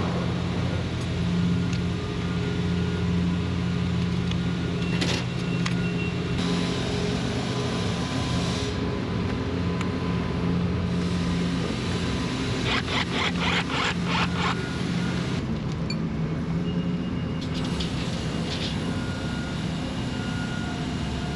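A nearby engine running steadily with a low, even hum. About 13 s in there is a quick run of sharp clicks or taps.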